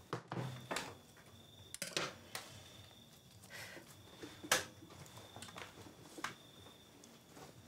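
Cloth being handled at a sewing table: soft fabric rustling with scattered small clicks and knocks at irregular moments, the sharpest about halfway through, over a faint steady high-pitched hum. The sewing machine itself is not running.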